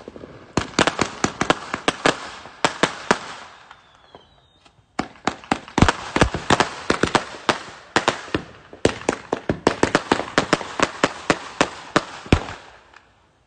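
Fireworks going off in rapid strings of sharp bangs and pops, several a second. There is a short lull about four seconds in, then a second long string of bangs that dies away near the end.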